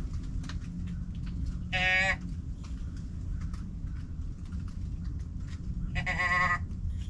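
A deer bleat can call tipped over twice, giving two short, nasal bleats about four seconds apart. The second bleat is a little longer.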